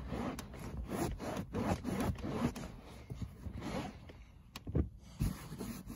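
Long-pile microfibre towel rubbed firmly back and forth over a damp fabric car seat to dry it, in irregular scrubbing strokes. A few sharper, louder strokes come near the end.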